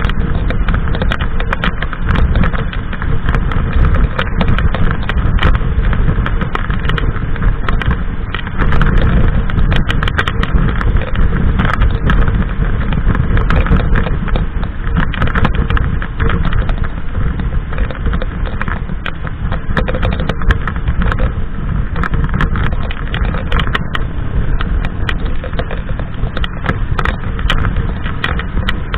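A Harley-Davidson Sportster's air-cooled V-twin running steadily at motorway cruising speed. Heavy wind rush buffets the camera microphone, with frequent small pops from the wind.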